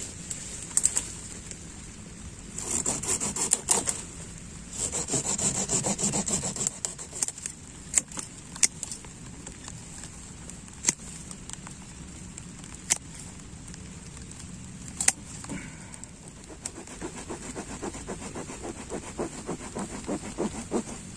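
A hand saw cutting through woody lantana stems in bouts of rapid back-and-forth strokes, with sharp single clicks from snapping twigs or the tool in between.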